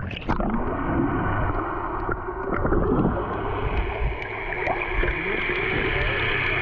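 Muffled sound picked up by a camera held underwater in the open sea: a steady low hum, with water gurgling and faint scattered clicks.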